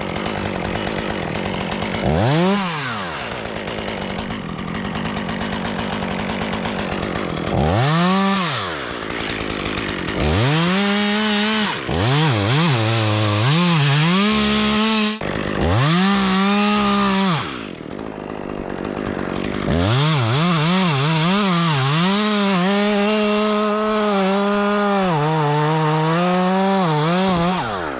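Two-stroke chainsaw revving up and down in repeated bursts, then held at high speed with the pitch wavering as it cuts through a tree limb.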